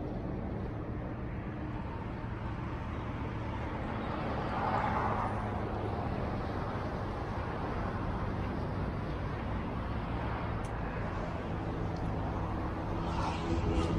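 Steady low hum of a vehicle engine running, under a wash of outdoor background noise.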